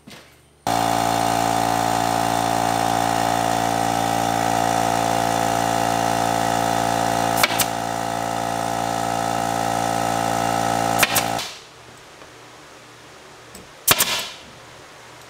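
A small Craftsman air compressor's motor kicks on under a second in, runs steadily while refilling its tank, and shuts off about eleven seconds in. Sharp shots from the pneumatic fastening gun come about seven, eleven and fourteen seconds in, each as a quick double.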